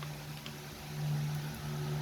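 Steady low mechanical hum, with a faint click near the start and another about half a second in.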